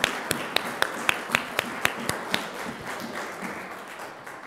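A congregation applauding, with one person's claps standing out close by at about four a second. The applause gradually thins and cuts off abruptly near the end.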